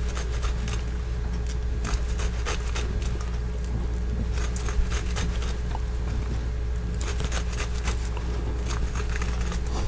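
Kitchen knife slicing the kernels off a grilled corn cob, giving many short irregular crisp cuts and scrapes, over a steady low hum.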